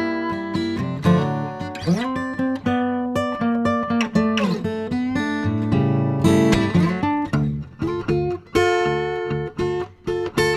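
Background music: acoustic guitar playing plucked notes with sliding pitches.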